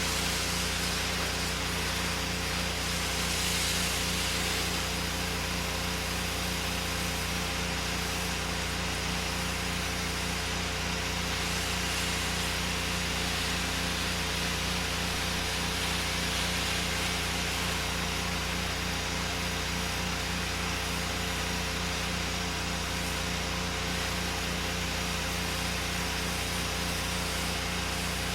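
8-gallon-per-minute pressure washer running steadily, its engine note under the constant hiss of the wand spraying: downstreaming sodium hypochlorite (SH) solution onto the house.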